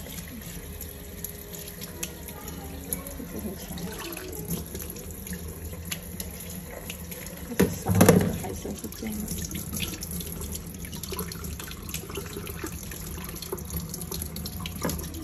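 Tap water running in a thin stream onto wet hands and into a plastic bowl of water as soaked, rehydrated sea cucumbers are rinsed and handled, with small splashes throughout. One louder slosh comes about halfway through.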